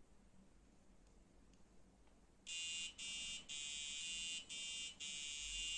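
A micro:bit buzzer alarm sounding a high buzz in repeated pulses, about two a second, starting about two and a half seconds in: the wetness sensor in the bed sheet has detected water and triggered the alert.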